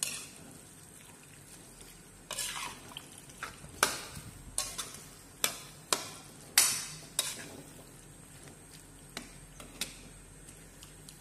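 A slotted metal spatula stirring beef masala in a metal wok, scraping and knocking against the pan about a dozen times at an uneven pace. The strokes come thickest in the middle and thin out near the end, over a faint sizzle from the pan.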